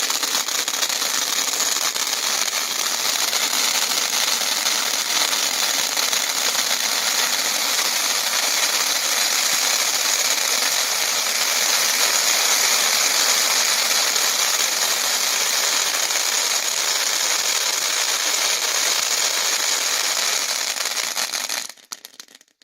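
Two jumbo crackling cone fountains burning together: a dense, steady hiss of sparks with fast crackling. The sound cuts off suddenly shortly before the end.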